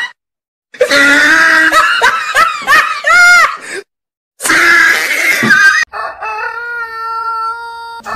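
A woman shrieking and wailing in short cries that rise and fall in pitch, broken by two brief silences. Then a rooster crows, and a steady held tone follows near the end.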